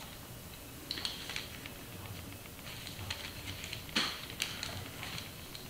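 Faint, irregular metallic clicks and small rattles from the internals of a Sachs five-speed hub gear being handled and turned in gloved hands, the sharpest click about four seconds in.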